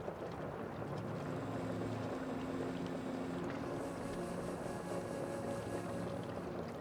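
Boat on the water: a steady wash of noise with a faint low drone underneath.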